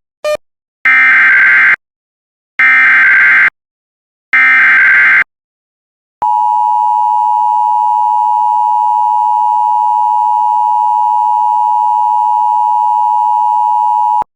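Emergency Alert System SAME header: three short bursts of warbling digital data tones, then the two-tone EAS attention signal (853 and 960 Hz sounded together), held steady for about eight seconds and cut off sharply. This sequence opens a severe thunderstorm warning alert.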